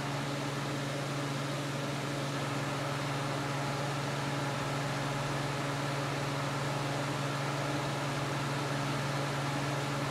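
Small floor air-circulator fan running: a steady motor hum under an even rush of air.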